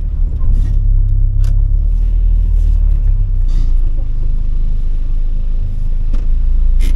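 Honda Civic EP3 hatchback's four-cylinder engine running at low speed, heard inside the cabin as a steady low rumble while the car creeps along, with a couple of faint clicks.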